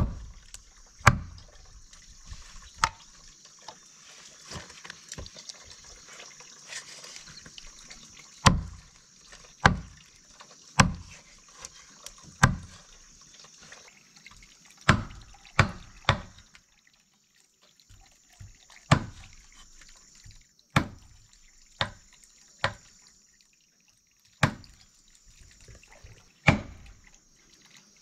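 A large knife chopping a whole chicken into pieces on a wooden chopping board: about fifteen sharp, irregular chops with a dull thud, with a quieter stretch early on. Underneath, water runs steadily from a hose into a plastic basin.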